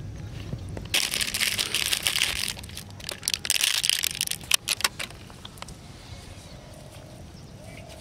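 Two spells of dry crinkling and crackling about a second in and again near the middle, then a few sharp clicks, as hands work dry bait ingredients and food packaging close to the microphone.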